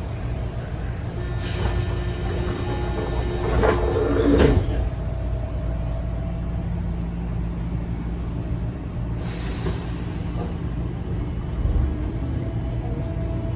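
Interior sound of a Tobu 9000 series electric train car (Moha 9804, with Toyo Denki armature chopper control): a steady rumble and electrical hum. Two bursts of air hiss come through, one about a second and a half in and one about nine seconds in.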